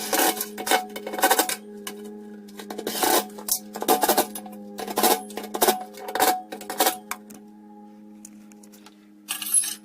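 Repeated sharp metallic clinks and clatters, irregular and a few to a second at times, over a steady low hum; the clatter stops for about two seconds near the end before one more burst.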